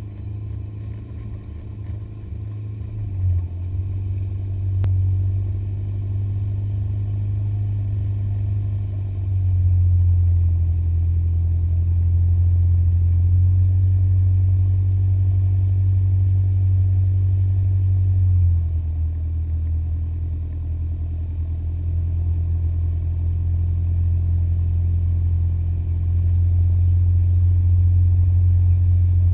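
An off-road 4x4's engine pulling steadily under load as the vehicle climbs a snow slope, heard from the hood as a deep drone. The engine gets louder about a third of the way in, eases off a little past halfway, then pulls harder again near the end.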